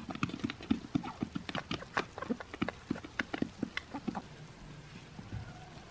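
Chickens and ducks pecking at greens on snowy ground: quick, irregular tapping of beaks, several taps a second, thinning out near the end.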